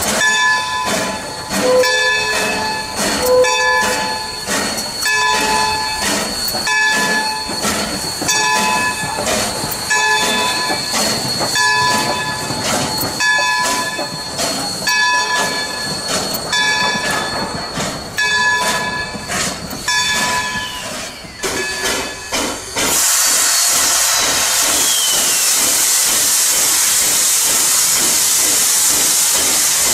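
Steam train on rails: a rhythmic clatter of wheels with ringing, squealing tones. About three quarters of the way through this gives way to a loud, steady hiss of steam.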